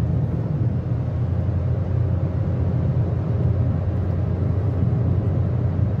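Car driving along a road: a steady low engine and road-noise rumble.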